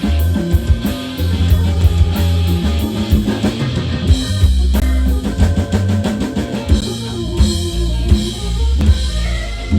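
Live band playing an instrumental passage: drum kit with bass drum and snare over electric bass and guitar, with a run of quick drum strikes in the middle.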